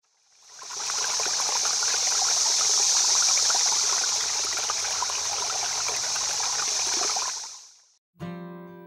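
Steady rushing of a small stream's running water that fades in, holds and fades out. Acoustic guitar music starts just before the end.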